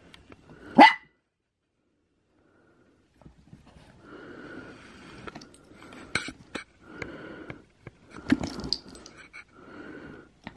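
A chihuahua barks once, sharply, about a second in, and again at the very end. In between come softer, broken sounds and clicks as it moves about close by.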